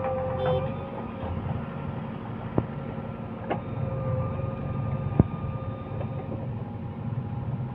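Diesel engine of a JCB 3DX backhoe loader running steadily, with a thin steady whine over it and three sharp knocks, the loudest about five seconds in.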